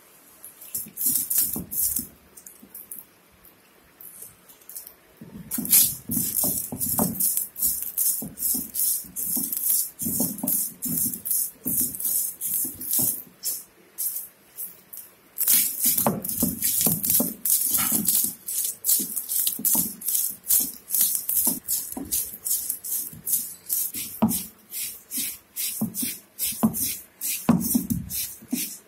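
Stone roller crushing dried red chillies and whole spice seeds on a granite grinding slab (ammi kal), a rhythmic dry crunching and scraping with each back-and-forth stroke, about two to three strokes a second. The strokes pause briefly twice, a few seconds in and about halfway through.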